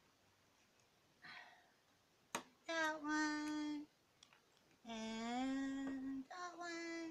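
A woman sings three long held notes, the middle one rising a little. Just before the first note there is a single sharp click from the small plastic building pieces she is pressing together.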